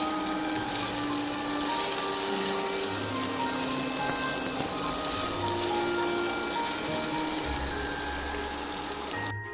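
Steady hiss of oil sizzling as food fries in a pan, under background music with held notes; both cut off suddenly near the end.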